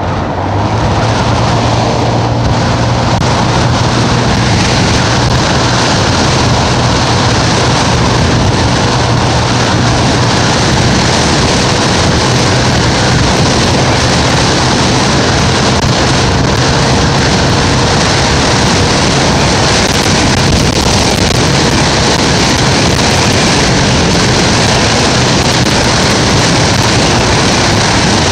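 Wind rushing over the microphone of a moving vehicle, with a steady engine drone underneath that fades somewhat in the later part.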